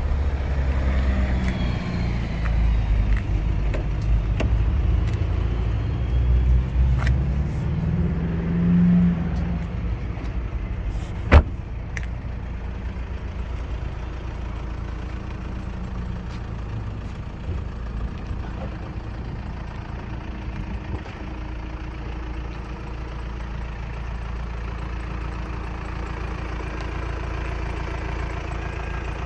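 Audi A6 engine idling steadily, with a more uneven low rumble through the first ten seconds. A single sharp click comes about eleven seconds in.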